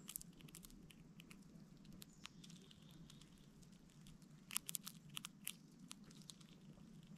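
Red squirrel cracking and chewing sunflower seeds: soft crunching with sharp little clicks of shell breaking, a quick cluster of them about four and a half seconds in.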